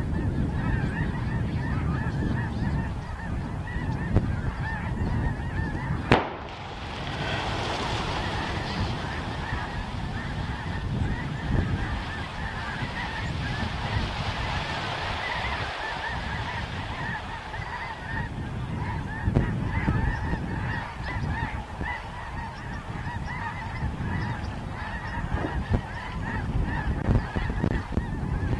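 A large flock of geese honking continuously, a dense chorus of overlapping calls. About six seconds in comes a single sharp bang, and after it a rushing hiss swells and fades over the next ten seconds as the flock takes to the air.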